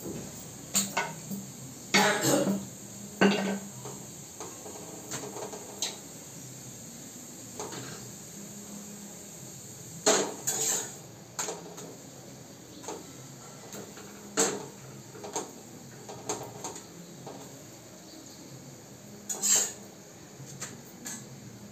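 Metal spatula and steel utensils knocking and clinking against a pan and plates in irregular clatters, the loudest about two, three, ten, fourteen and nineteen seconds in, over a steady background hum.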